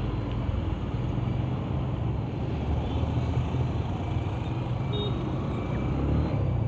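Motorcycle engine running steadily at road speed, heard from the rider's helmet microphone, with wind and traffic noise over it.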